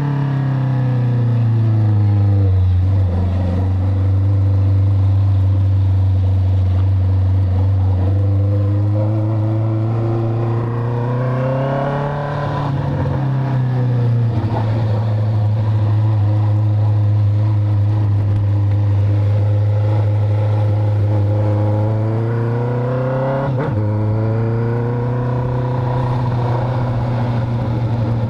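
Honda CB650F's inline-four engine running loud through a full stainless-steel Atalla exhaust while being ridden. Its note falls over the first few seconds, rises and drops again around the middle, and jumps up sharply near the end before holding steady.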